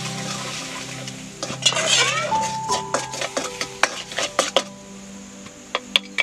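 A spoon stirring and scraping around a thin metal pan over a wood fire. There is a dense scrape about two seconds in, then scattered clinks against the pan, several of which leave it ringing briefly.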